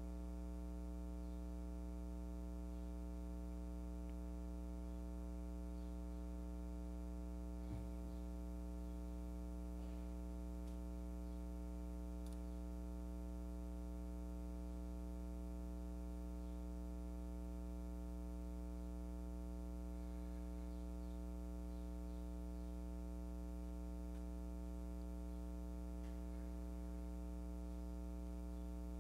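Steady low electrical hum, the mains hum of the microphone and sound system, with one faint click about eight seconds in.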